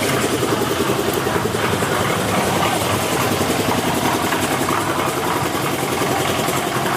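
Engine of a portable concrete mixer running steadily, with a fast, even knocking pulse.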